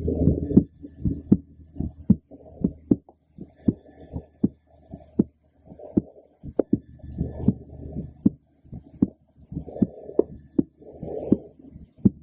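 A woman's heartbeat heard through a stethoscope: a steady lub-dub, about four beats every three seconds. It follows a brief noisy rubbing in the first half-second.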